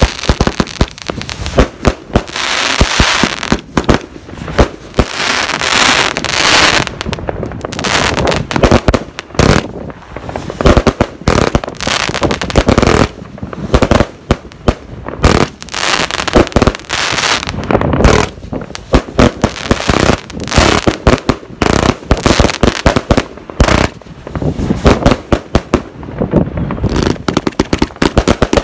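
Multi-shot consumer firework batteries firing: a dense, continuous run of sharp bangs from launches and bursting shells, many a second, with crackle.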